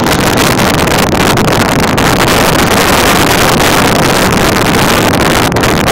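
Loud, steady rush of wind buffeting the microphone on the open deck of a moving motor boat. The wind is mixed with the boat's running noise and the churning water of its wake.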